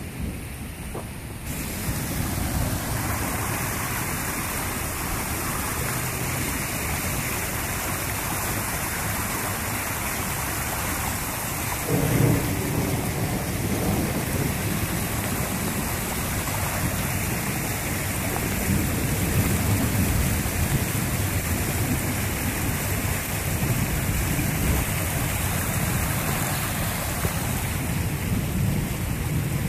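Thunderstorm with strong wind and heavy rain: a steady loud rush that steps up about a second and a half in. A louder low rumble of about two seconds comes about twelve seconds in.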